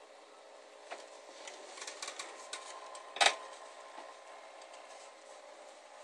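Handling noise from a phone: a few light clicks and one sharp knock about three seconds in, over a faint steady hum.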